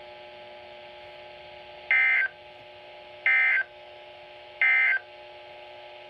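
Midland NOAA weather radio's speaker sending three short, identical data-tone bursts about a second and a half apart: the SAME end-of-message code that closes an Emergency Alert System / NOAA Weather Radio warning. A steady low carrier hum lies between the bursts.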